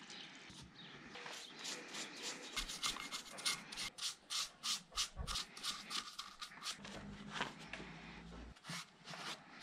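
Cloth rag scrubbing the finned sump of a Citroën 2CV 425 cc flat-twin engine, rubbing off grime in quick back-and-forth strokes, a few a second.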